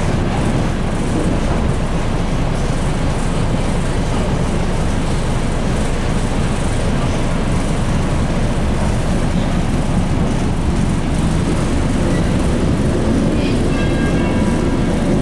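Electric commuter train heard from inside the carriage: a steady, even running rumble of the moving train, with a few faint brief high tones near the end.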